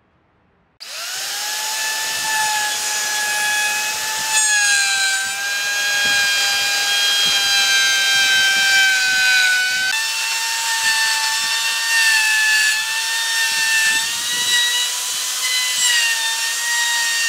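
A power tool's electric motor spins up about a second in and runs with a steady high whine. Its pitch shifts slightly a few times, most clearly a small step up about ten seconds in.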